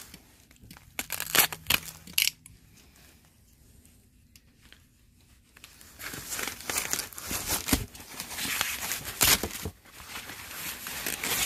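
White foam packing wrap crinkling and tearing as it is handled and pulled open: a few sharp crackles in the first couple of seconds, a lull, then steady crinkling from about six seconds in.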